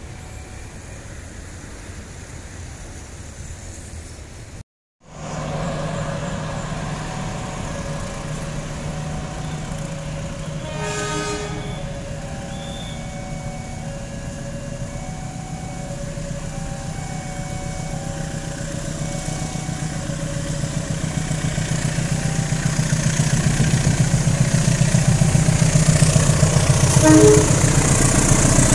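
KAI CC 201 diesel-electric locomotive (GE U20C) engine running with a steady hum that grows louder as the train approaches, with a short horn toot about eleven seconds in and another near the end. A repeating two-note signal sounds in the background.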